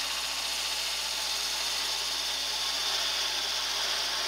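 Parting tool taking a light, thin cut in spalted wood turning on a lathe: a steady hiss of shaving as chips fly off, over the low hum of the running lathe.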